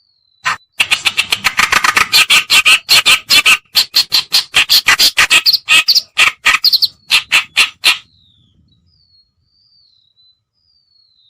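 Kerakbasi reed warbler song in a lure recording: a fast, loud run of harsh chattering notes, about five a second, lasting some seven seconds and then stopping. Faint, thin whistled notes from a bird follow near the end.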